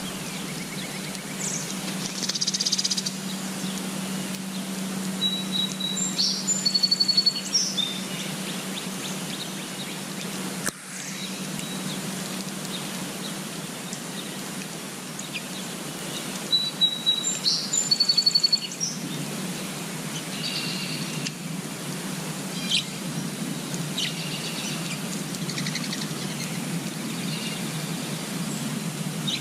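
Small songbirds singing and chirping: a short high trilled phrase comes twice, with scattered chirps between, over a steady background noise with a low hum in it.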